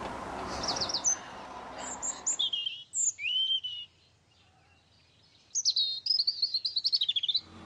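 Small songbird singing: short, high chirping phrases, then a longer rapid twittering phrase near the end. Under the first part runs a low background noise that cuts off about two and a half seconds in.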